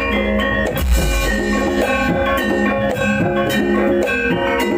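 Javanese gamelan music for a kuda kepang horse dance: struck metallophones playing a brisk, repeating melody over drums, with a heavy stroke about a second in.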